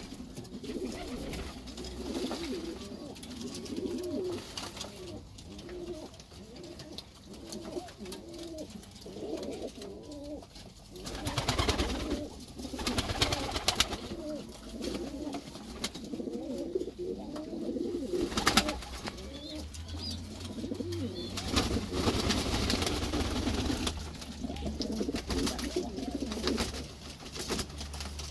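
Domestic pigeons cooing continuously in low rolling calls, with several louder bursts of wing-flapping and splashing from the birds bathing.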